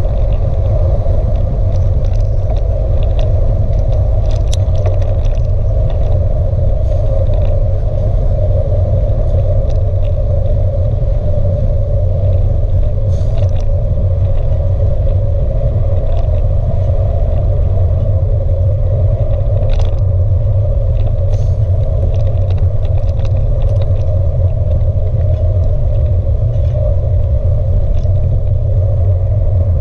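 Steady, loud rumble of wind and tyre-on-tarmac road noise picked up by a camera mounted on a moving bicycle, with a faint tick or rattle now and then.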